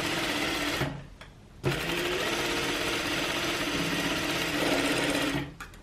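Sewing machine stitching a quarter-inch seam through layered fabric, running steadily, stopping briefly about a second in, then starting again and stopping near the end.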